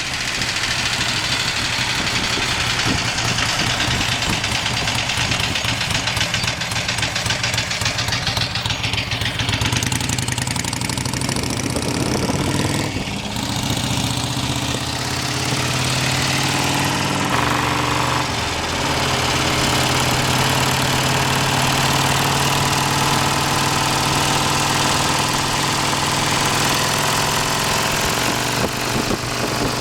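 An engine running steadily, its note shifting a couple of times partway through.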